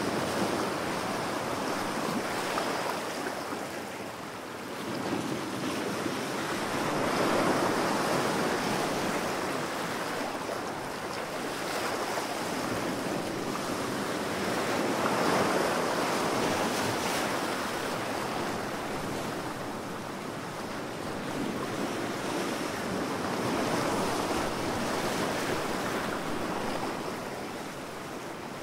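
Ocean waves surging and breaking in a continuous rushing wash that swells and eases in slow surges every eight seconds or so, three times.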